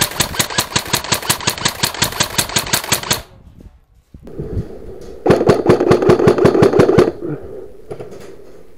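Airsoft guns firing rapid full-auto bursts of evenly spaced sharp cracks. The first burst lasts about three seconds. After a short pause comes a second, louder burst of under two seconds.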